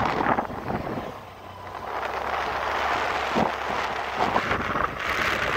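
Wind buffeting the microphone over a steady rush of outdoor noise, dipping briefly about a second in.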